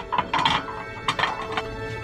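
Ceramic serving platters clinking against each other on a stack as one is handled and set back down, several sharp ringing clinks in the first second and a half that then stop.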